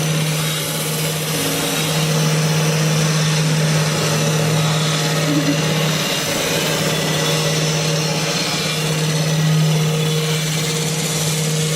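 CNC wood lathe turning a wooden blank in its automatic cycle: a steady motor hum with the cutting tools shaving the spinning wood.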